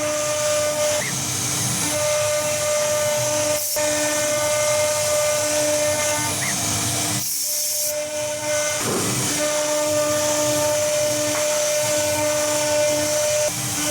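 CNC router spindle running with a steady high whine over a hiss. The whine drops out briefly twice.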